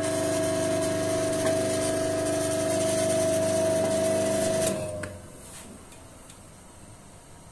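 High-speed bench grinder with a grit-80 CBN wheel running with a steady hum, not grinding; the hum drops away about five seconds in as the grinder stops.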